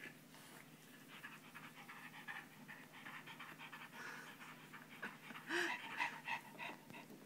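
A dog panting close by: quick, faint, rhythmic breaths, growing a little louder a few seconds before the end.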